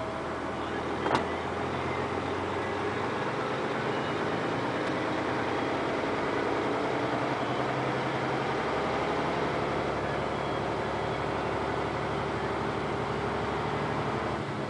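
Engine and road noise of a slow-moving vehicle heard from inside its cabin: a steady low drone, with a single sharp click about a second in.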